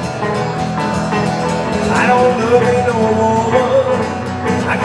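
Live acoustic country music: two guitars, a cutaway acoustic and an archtop, playing together with a melody line on top.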